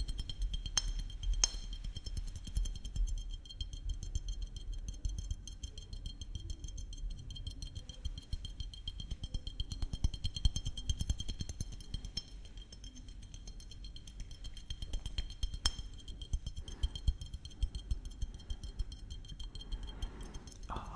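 Fingers tapping rapidly on a small glass maple syrup bottle held right at the microphone: a quick, uneven patter of light clinks and taps.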